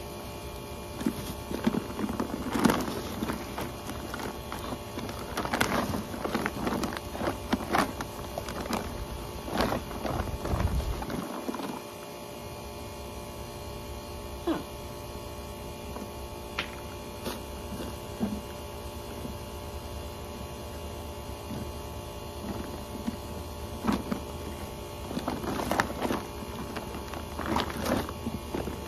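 Hands digging and rummaging through wet potting soil dumped from a grow container: scattered rustles and scrapes, busiest in the first ten seconds and again near the end, over a steady faint hum.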